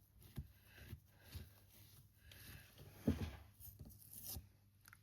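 Faint rubbing and a few light knocks from hands handling craft materials on a tabletop, with the loudest knock about three seconds in.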